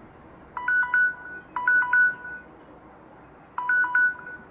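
Samsung smartphone's countdown-timer alarm going off: three short bursts of quick two-pitch electronic chimes, signalling that the timer has run out.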